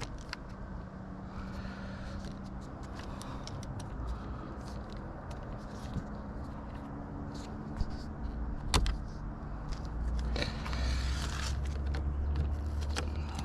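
Scattered plastic clicks and rattles of door-panel trim and an electrical plug being worked loose, over a steady low hum that swells in the second half, with one sharp snap about nine seconds in.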